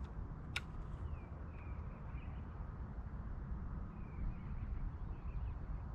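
Outdoor lakeside ambience: small birds chirping now and then over a low, uneven rumble of wind on the microphone, with one sharp click about half a second in.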